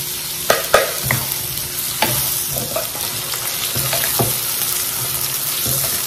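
Eggplant, petai and shrimp sizzling in a hot wok, a steady frying hiss, with a spatula knocking and scraping against the pan several times as they are stirred.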